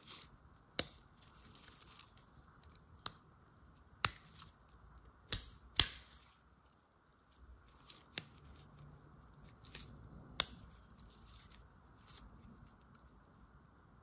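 Victorinox Adventurer 111mm Swiss Army knife handled in the hand, its tools opened and closed: a string of sharp metal clicks and snaps at uneven intervals, with light scraping of the blades and tools between them.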